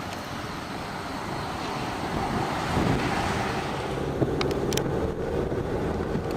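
Car driving, with steady road and engine noise that swells slightly a couple of seconds in, and a few short ticks about four to five seconds in.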